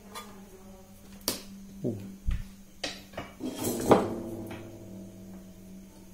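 Clicks and knocks of multimeter test probes and small objects being handled and set down on a work table, about half a dozen, the loudest near four seconds in with a brief metallic ring that fades.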